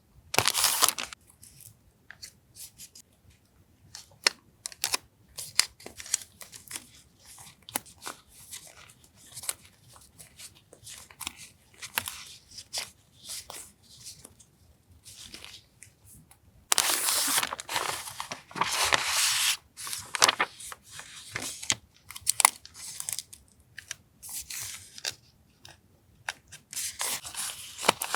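Paper and plastic packaging of stationery being handled: crinkling, rustling and tearing with scattered small taps, and longer, louder stretches of crinkling about 17 seconds in and again near the end.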